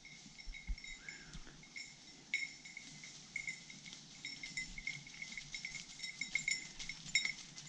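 Small metal bell on a hunting dog's collar jingling irregularly as the dog moves about, the jingles coming more often and louder over the second half.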